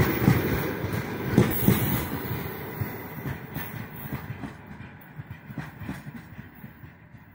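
Freight train's open gondola wagons rolling past, their wheels rumbling and clacking over the rail joints. The sound fades steadily from about two seconds in as the end of the train moves away.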